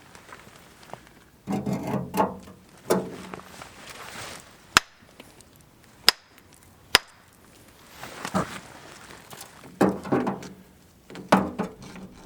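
Stones being handled and stacked, scraping and clunking against each other, with three sharp separate clacks in the middle.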